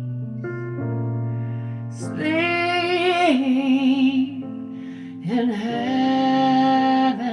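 A recorded song playing: a woman's voice singing two long held phrases with vibrato over sustained keyboard chords.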